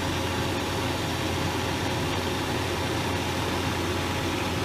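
Steady in-flight drone of a Cessna 206's Soloy-converted Allison turbine engine and propeller, heard from the cabin: a constant low hum with an even hiss over it.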